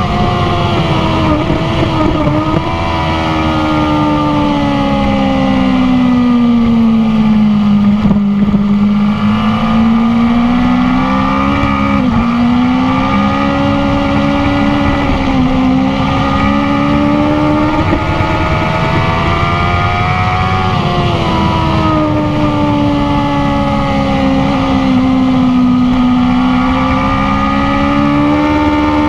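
BMW S1000RR inline-four engine heard onboard at track speed over constant wind rush. The engine note falls steadily for the first eight seconds as the bike slows from high speed into a corner, then rises and falls gently through the following bends, with a sudden jump up in pitch about twenty seconds in.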